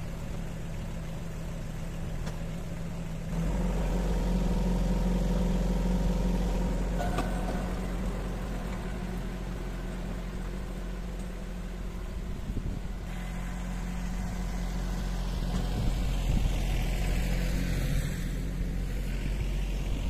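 Yanmar compact diesel tractor running steadily under load while its rear rotary tiller churns the soil. The engine grows louder and deeper about three seconds in, and louder again near the end as the tractor comes back close.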